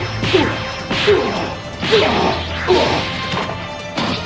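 Animated fight sound effects: a string of punch and impact hits, about five, each with a short falling swish, over background music.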